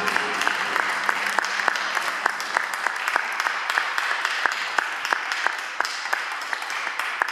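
Applause from a small audience. Many individual hand claps stand out separately over a steady wash of clapping.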